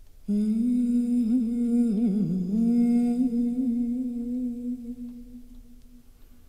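A woman's voice humming one long held note, which wavers in pitch about two seconds in and fades away near the end: the opening of a live folk-song arrangement.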